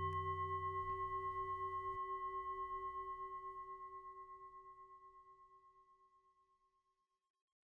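A struck bell tone, of the singing-bowl kind, ringing out at the end of the intro music. It wavers as it fades and dies away to silence about five seconds in.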